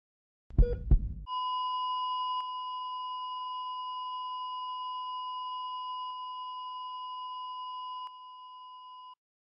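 Two heartbeat thumps, then a heart-monitor flatline: one long steady tone that drops in level twice and cuts off suddenly near the end.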